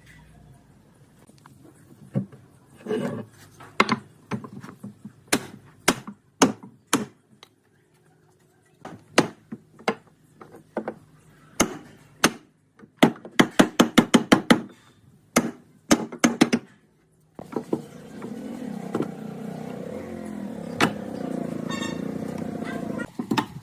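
Hammering on wood: a series of sharp single strikes at irregular intervals, with a quick run of about eight blows in a row about two-thirds of the way through. After that comes a steady noise that lasts several seconds.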